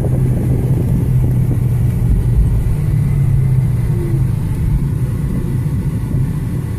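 Car driving, heard from inside the cabin: a steady low engine and road hum.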